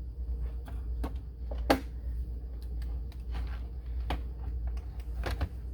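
Light clicks and knocks of a mouse cable and keyboard being shifted about on a desk, with one sharper knock just under two seconds in, over a steady low hum.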